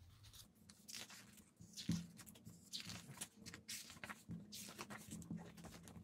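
Soft paper rustles and swishes as the pages of a large photobook are turned and handled, several times.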